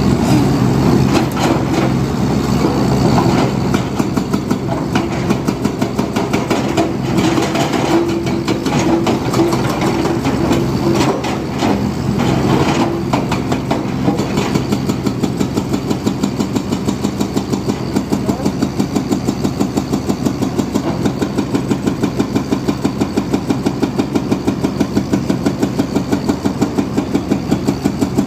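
Heavy machinery's diesel engine running close by, its steady note settling into an even, rapid pulsing beat about halfway through.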